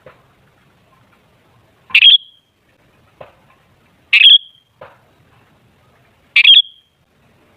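Sooty-headed bulbul (kutilang) giving three loud, short calls about two seconds apart, each ending in a brief higher note: a lure call for drawing other bulbuls to call.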